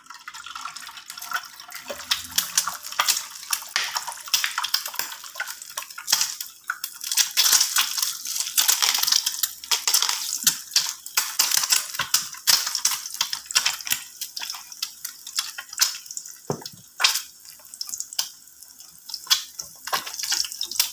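An egg frying in hot oil in a pan, sizzling with many sharp crackles and spits. The sizzle starts suddenly as the egg goes into the oil and eases a little in the second half as the white sets.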